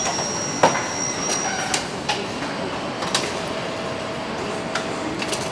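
Car assembly-line factory noise: a steady mechanical hum with a handful of sharp clicks and knocks from parts and tools being fitted, the loudest about half a second in. A thin high whine stops near two seconds in, and a lower steady tone comes in a little after three seconds.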